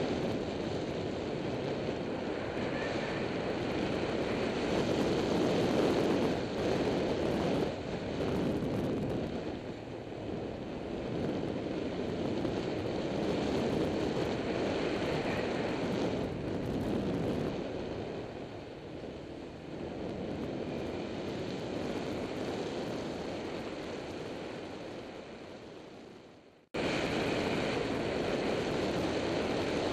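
Motorbike riding along a winding road heard from a bike-mounted action camera: wind rushing over the microphone with the engine running underneath, swelling and easing as the ride goes on. Near the end the sound fades away to almost nothing and then cuts straight back in.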